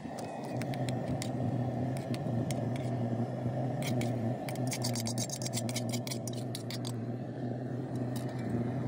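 A spoon scraping Maggi noodles out of a cooking pot onto foil plates, a quick run of clicks and scrapes about halfway through, over a steady low hum.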